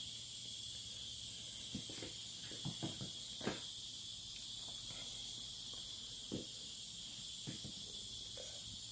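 Steady high-pitched hiss of background noise, with a few faint clicks and light knocks.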